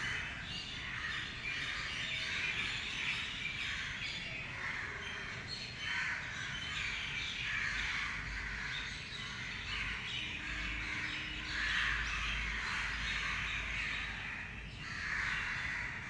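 Many birds chirping and calling at once, a steady chorus with no pause, over a faint low rumble.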